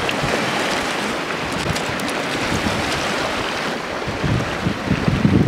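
Small waves washing onto a pebble shore, with wind buffeting the microphone and gusting harder near the end.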